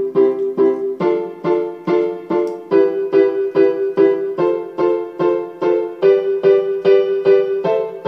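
Electronic keyboard with a piano voice playing right-hand block chords up the key of C major, each chord struck four times in a steady rhythm of about three strikes a second.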